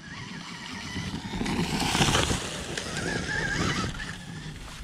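Stark Varg electric dirt bike riding past, its motor whine wavering up and down over the noise of the ride; the sound swells to its loudest about two seconds in, then eases off.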